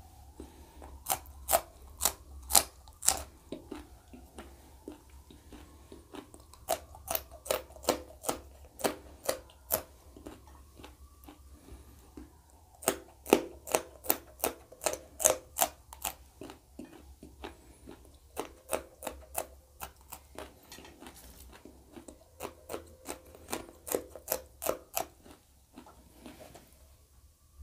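Close-up crunching of raw green chillies being bitten and chewed, in runs of sharp crunches a few a second with short pauses between mouthfuls.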